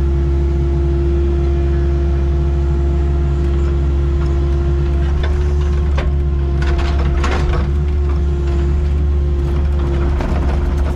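Excavator running steadily: a deep engine drone with a constant whine over it, and a rattle of metallic clanks and knocks from about six to seven and a half seconds in.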